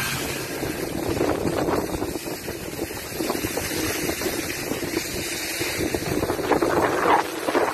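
Skis scraping and hissing over packed snow on a downhill run, with wind buffeting the microphone: a steady rushing noise with uneven surges.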